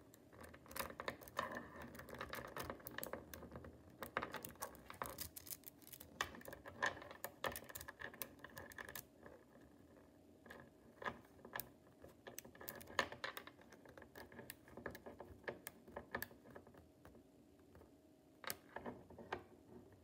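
Small metal magnetic balls clicking and clattering against each other as they are pulled off a clump and snapped into a chain. The clicks come thick and fast for the first half, then thin out to separate snaps.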